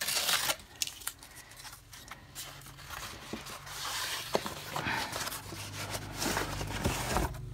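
Cardboard book mailer torn open along its tear strip, with a loud rasp at the start. The cardboard is then handled and the shrink-wrapped book slid out, giving rustling, scraping and a few light knocks.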